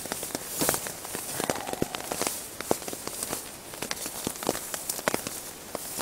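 Rain tapping irregularly on a tarp overhead, a scatter of sharp ticks over a steady hiss, mixed with the rustle and crinkle of a ground sheet or mat being spread out and crawled over.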